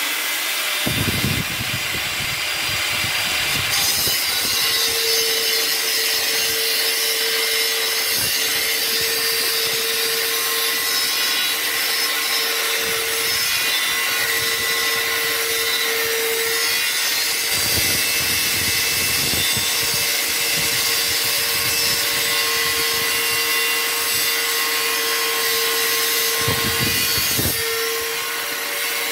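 Dekton DK-AG850 850 W angle grinder running with a 100 mm cutting disc, cutting through a square steel tube: a steady, loud grinding hiss, with a steady lower tone coming in about five seconds in.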